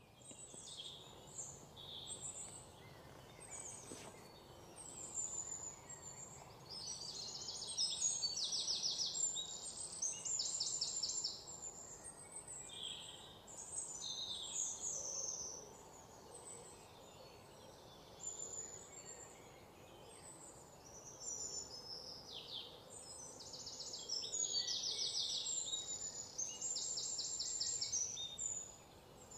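Faint birdsong: small birds chirping and giving rapid high trills in bursts, over a low background hiss.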